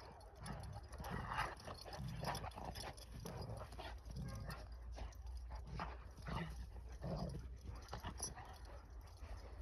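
Large Turkish shepherd dogs (Akbash) play-fighting, with short dog vocalisations coming about once a second over a steady low rumble.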